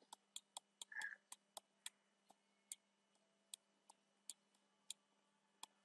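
Faint, irregular clicks of a computer mouse, a dozen or more sharp clicks, some in quick runs and others spaced apart.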